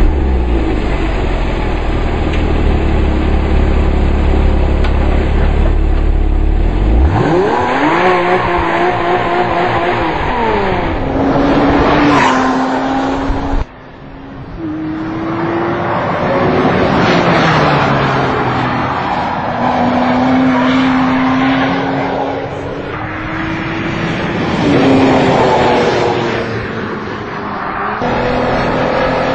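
Porsche Cayman S 3.4-litre flat-six engine and exhaust: the revs drop into a low, steady idle, then climb again about seven seconds in. After a brief drop-out near the middle, the car is heard driving, its engine pitch rising and falling repeatedly as it accelerates and shifts.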